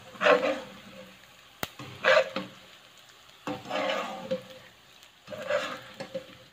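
Wire-mesh skimmer stirring and scooping through hot oil in a wok of frying tempe: four loud sweeps about two seconds apart, over a faint sizzle, with one sharp click between the first two.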